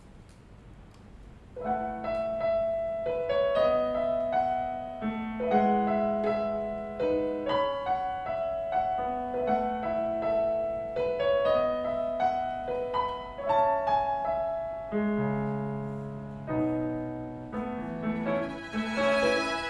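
Piano playing a melody over chords, beginning about a second and a half in after a moment of quiet room hum. Deeper bass notes join in the second half.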